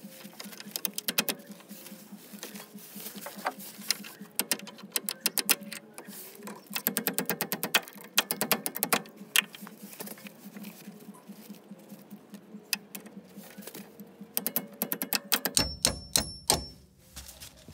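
A hammer strikes a socket and extension held against the old steering rack bushing in quick bursts of sharp metallic taps, driving out the press-fitted rubber bushing. Near the end a couple of blows ring briefly.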